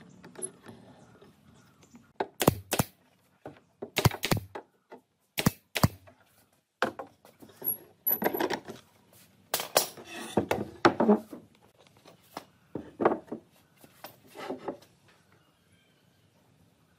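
Steel pipe clamps being set and tightened on a wooden frame: a dozen or so sharp metallic clicks and knocks of the clamp jaws on the pipe, at irregular spacing, with softer handling noise between them.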